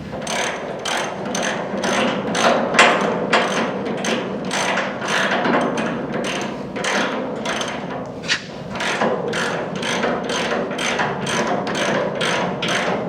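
Hand ratchet wrench clicking steadily, about three clicks a second, as a bolt on a suspension trailing arm is run down.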